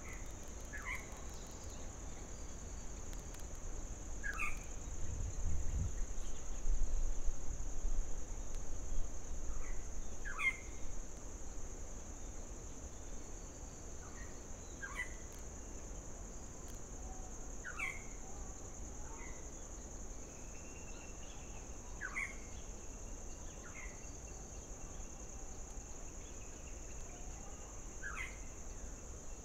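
Forest ambience: a steady, high-pitched insect drone with a bird giving a short sweeping call about every four seconds. A low rumble on the microphone swells about five to eight seconds in.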